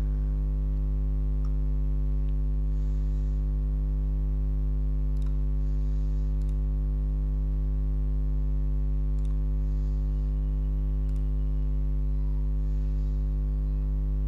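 Steady electrical mains hum, a low buzz made of many evenly spaced tones, with a handful of faint computer-mouse clicks as options are picked from drop-down menus.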